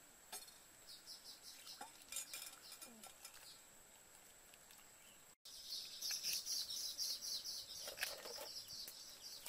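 Birds chirping in rapid repeated high notes, with a few light clicks and knocks of a pot and utensils being handled in the first half. After a sudden brief drop-out about halfway, the chirping is louder and denser.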